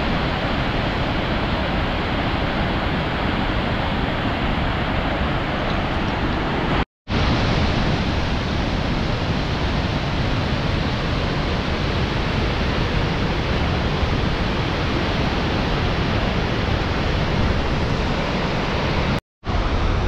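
Steady, loud rush of a large waterfall, the Salto de Eyipantla, falling water with no pitch to it. The rush breaks off to silence for a moment twice, about seven seconds in and again near the end.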